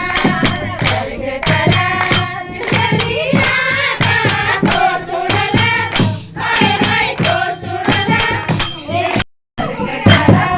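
Kumaoni Holi song: voices singing over a steady percussion beat of about two strokes a second, with jingling percussion. The sound cuts out briefly near the end.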